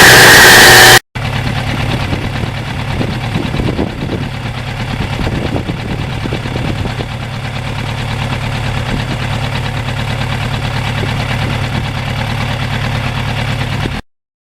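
A very loud noise with a high steady tone cuts off abruptly about a second in. It is followed by a motorcycle engine running steadily at a low, even pitch, which stops suddenly near the end.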